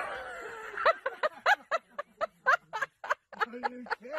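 A person laughing hard, a rapid run of short breathy 'ha' bursts, about three or four a second.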